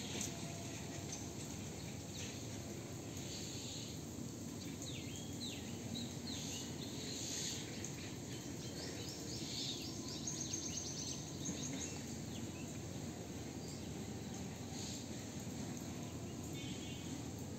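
Outdoor ambience: a steady low background rumble with birds chirping, a cluster of short high calls and a quick trill in the middle stretch, and a fast pulsing call near the end.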